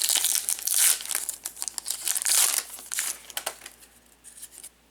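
Crinkling of a trading-card pack wrapper being handled and torn open. It comes in dense crackly bursts for about three and a half seconds, then thins to a few faint crackles.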